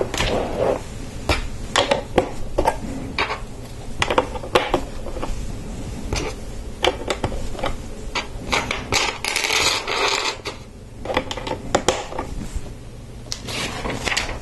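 Plastic Lego bricks clicking and snapping together as pieces are picked from the loose parts and pressed onto the model: irregular sharp clicks and light clatters, with a brief rustle about two-thirds of the way through.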